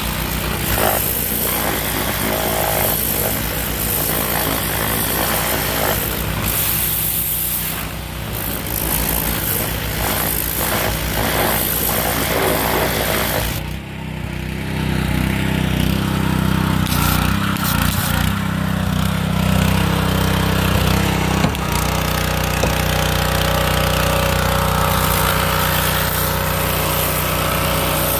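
Kohler SH265 6.5 hp single-cylinder engine running steadily under load, driving a pressure-washer pump, with the hiss of the spray from the wand. The spray hiss drops away for a moment about halfway through, then returns.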